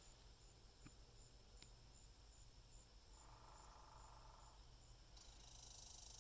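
Faint insect chirring in the woods: soft, evenly spaced high chirps, a brief rapid rattle in the middle, and a steady high buzz that starts about five seconds in.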